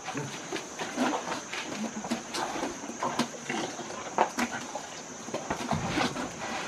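Asian elephants rummaging with their trunks through food in plastic baskets: irregular rustling and knocking of food and basket.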